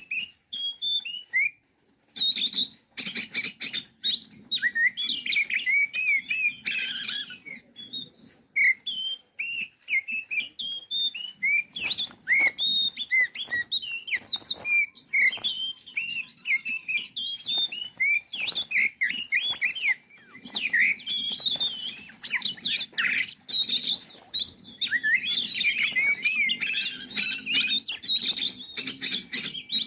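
Oriental magpie-robin (kacer) singing: a rapid, almost unbroken stream of varied chirps and whistled notes.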